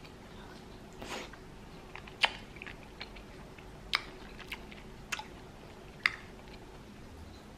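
A small spoon clicking against a ceramic bowl as it cuts into and scoops pieces of green melon, in a few sharp separate clicks with soft crunches of the fruit in between.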